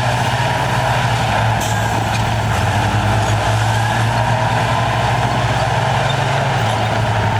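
Heavy diesel engine of earthmoving machinery running steadily under load, with a high whine over it; the engine note shifts slightly a few times. A brief sharp hiss-like sound comes about one and a half seconds in.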